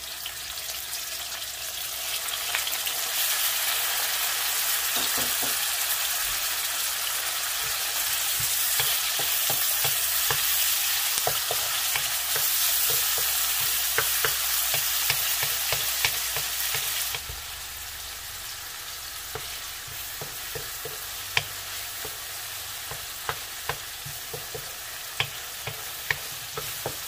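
Chopped tomatoes sizzling in hot oil with garlic and onion in an aluminium wok, stirred with a wooden spatula that scrapes and taps against the pan. The sizzle is loud at first, then drops abruptly about seventeen seconds in to a quieter sizzle with scattered taps of the spatula.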